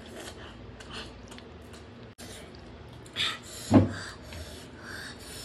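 Close-up eating sounds of chicken curry being eaten by hand: quiet chewing and wet mouth noises, then a couple of short, sharp slurps from about three seconds in, the second the loudest.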